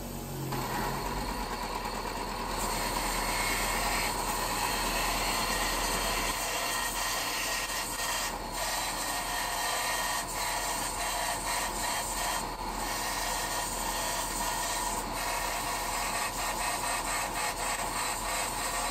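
Belt sander running with the head of a steel bolt pressed against the moving abrasive belt, a steady grinding rasp of metal on the belt, with a few brief breaks as the part shifts.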